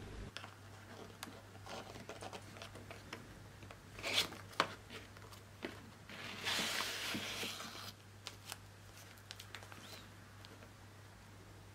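Hands handling a cardboard product box and its paper wrapping: light taps and scrapes, two sharper knocks about four seconds in, then a couple of seconds of paper rustling as the wrapped contents are pulled out.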